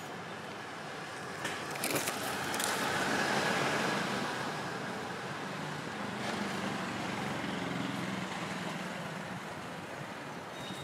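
Motor vehicle passing over steady outdoor traffic noise, loudest about three seconds in, with a few sharp clicks as it swells.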